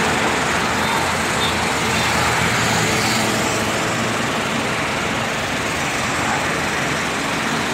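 Steady road noise of a moving vehicle: an even low rumble with hiss above it, unchanging throughout.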